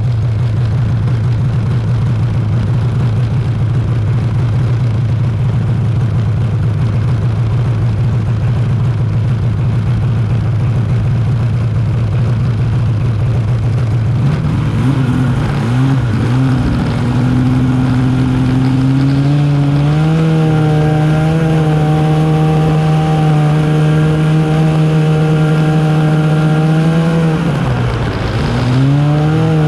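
Arctic Cat snowmobile engine idling steadily, then throttled up about halfway through as the sled pulls away, settling into a steady higher-pitched run, with a brief drop and rise in revs near the end.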